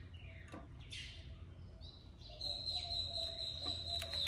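Faint crinkling of a sheet of adhesive vinyl wrap film being handled. About halfway through, a steady high whistling tone starts and holds to the end, the loudest sound here.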